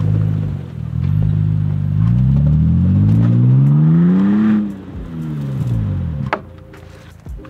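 Toyota Tacoma TRD Pro's V6 engine under heavy throttle as the truck plows through deep, soft snow: steady at first, the revs climb from about two seconds in, then fall back, and the engine drops away near the end.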